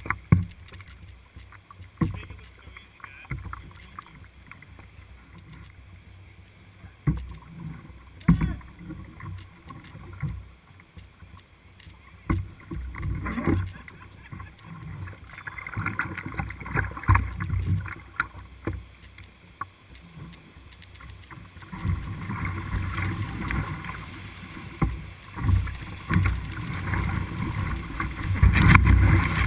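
River water rushing around a canoe in whitewater, with paddle strokes splashing and occasional short knocks. The rush of the rapid grows louder in the second half.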